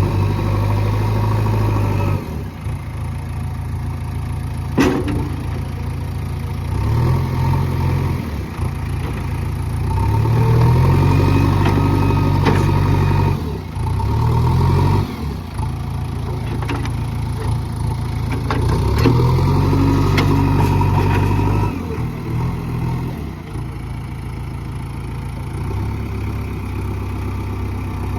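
Diesel engine of a JCB excavator running and revving up and down again and again as the machine works, with a few sharp knocks, the first about five seconds in.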